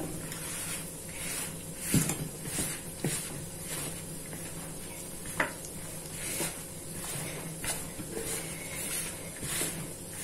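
Gloved hands kneading dry, crumbly sablé dough in a plastic bowl: irregular scrunching and rustling of the plastic gloves and dough, with a few sharper clicks.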